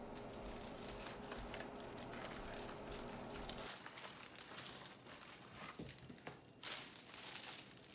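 Thin plastic oven bag crinkling and rustling as it is handled, a run of faint, irregular crackles with a denser rustle about seven seconds in.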